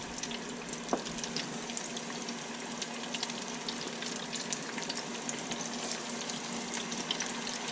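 Breaded catfish nuggets frying in the hot oil of an electric deep fryer: a steady sizzling hiss full of fine crackles.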